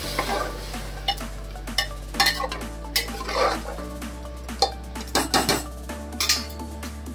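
Metal ladle stirring a watery chana-and-potato curry in a pressure cooker, with irregular scrapes and sharp knocks of the ladle against the pot.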